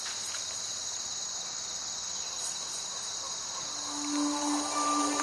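Steady, high-pitched chirring of insects in summer vegetation. Soft music with long held tones fades in a little before the end.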